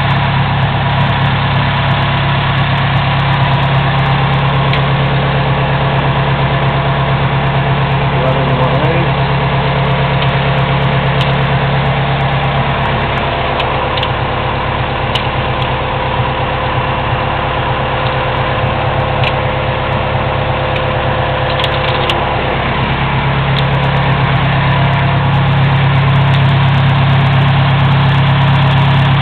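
Forklift engine idling steadily under a low, even hum, with a few faint metallic clicks here and there.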